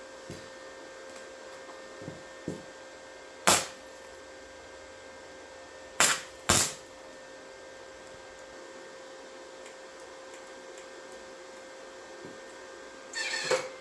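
Three short, loud crackling bursts of a flux-core welding arc being struck on steel, about three and a half seconds in and twice more a half second apart near six seconds, over the welder's steady hum.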